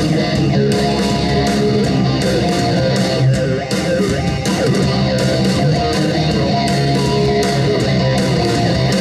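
Loud rock music with electric guitar and a steady beat.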